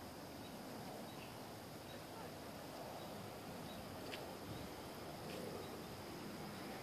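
Faint outdoor background: a steady hiss with faint short high chirps about once a second and two soft clicks about four and six seconds in.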